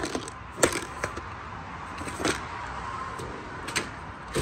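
A handful of separate metallic clinks and knocks, about five spread over a few seconds, as toolbox drawers and the loose hardware and tools in them are handled. A steady background hum runs underneath.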